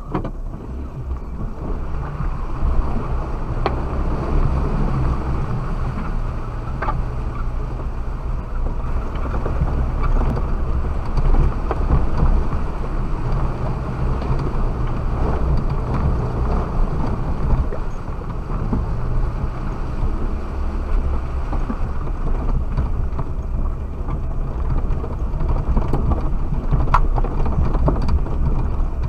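Suzuki Jimny driving off-road, heard from inside the cabin: a steady low engine and drivetrain rumble with a few scattered knocks and rattles from the body and suspension over rough ground.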